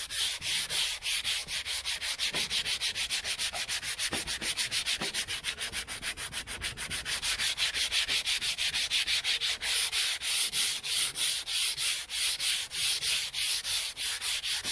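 Sandpaper rubbed by hand over a Bondo body-filler skim coat on a car dash pad, in quick back-and-forth strokes about five a second. It is scuffing out the fine lines left in the filler.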